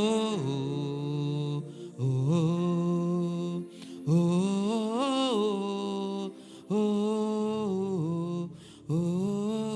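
Wordless worship singing: long drawn-out vocal phrases, each scooping up in pitch at its start and then bending. A new phrase begins about every two seconds, over a held background chord.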